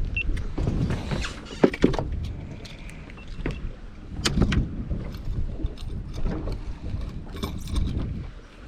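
Knocks, clicks and clatter of handling on a bass boat's deck, against a low rumble, as a freshly landed fish is dealt with.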